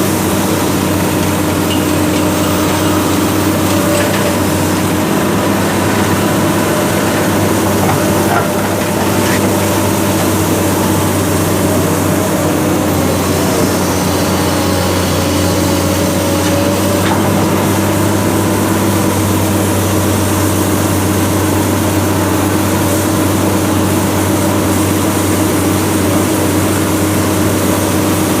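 Heavy-equipment diesel engine running steadily at an even pitch, a constant low drone with no pauses.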